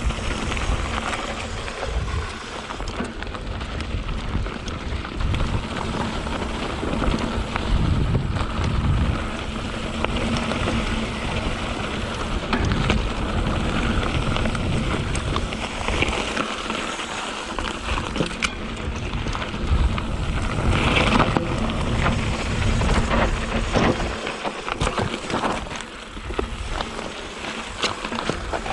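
2021 Canyon Spectral 7 mountain bike riding a rocky dirt trail: tyres crunching and crackling over gravel and stones while the bike rattles, with wind rumbling on the microphone.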